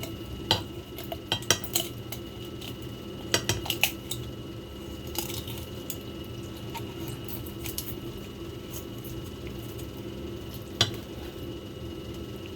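Scattered clicks and knocks of a kitchen blade and utensils against a board or dish while a raw whole chicken is cut in half down the middle. The knocks cluster in the first few seconds, with one sharp knock near the end, over a steady background hum.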